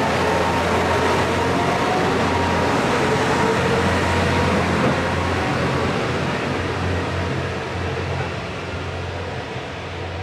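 Kiha 125 diesel railcar pulling away from the platform, its engine running under load with a steady low hum. The sound fades near the end as the railcar draws away.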